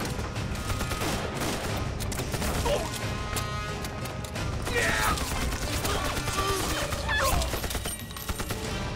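Repeated rifle gunshots of a film firefight, many shots in quick succession, under a dramatic music score.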